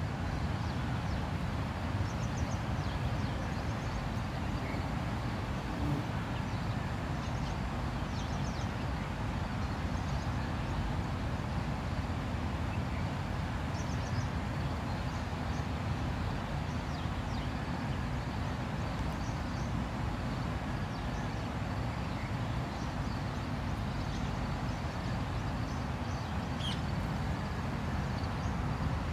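Steady outdoor background noise, mostly a low rumble, with faint short high chirps now and then.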